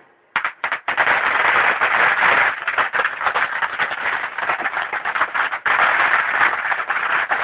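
Ground fountain firework spraying sparks: a couple of sharp pops as it catches, then about a second in a loud, continuous crackling hiss.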